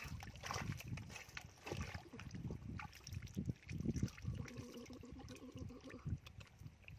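Feet and hands sloshing and squelching in shallow muddy water and soft wet mud, in irregular splashes. Past the middle, a steady held tone lasts about two seconds in the background.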